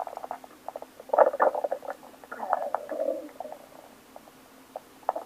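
A person's stomach growling on waking: crackly, gurgling bursts about a second in, then a longer gurgle in the middle that trails off lower, with scattered small pops and clicks after.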